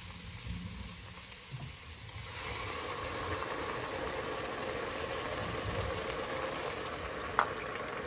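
Hot water pouring from an electric kettle into a measuring cup over a pot of sizzling sautéed vegetables, a steady rushing splash that gets louder about two seconds in. A single sharp tap near the end.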